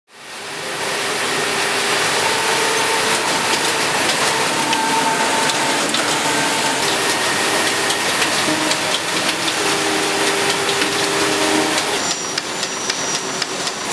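Knitting machines running: a dense mechanical clatter of rapid clicks and whirring, with whine tones that come and go. It fades up quickly at the start, and about twelve seconds in the mix changes as higher whine tones come in.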